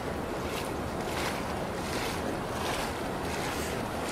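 Steady rush of river rapids, with wind rumbling on the microphone.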